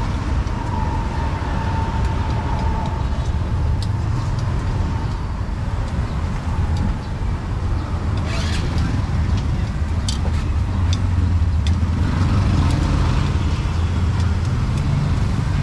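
Street traffic noise: a steady low rumble of passing engines. A high steady tone fades out within the first few seconds, and a few sharp clicks come later.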